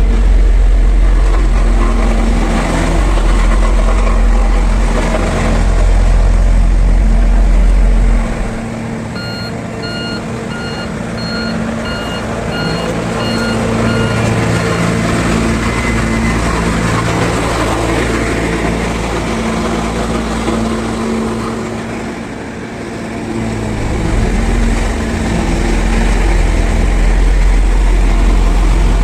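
Road roller's diesel engine running, with a heavy low rumble that drops away about eight seconds in and comes back near the end. A reversing alarm beeps in a steady series from about nine to fourteen seconds in.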